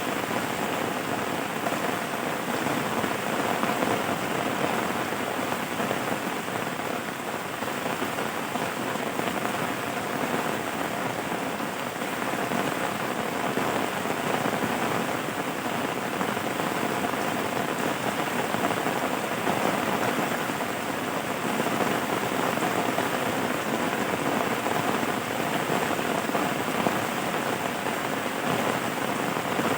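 Steady rain falling on a surface, a dense, even patter that does not let up.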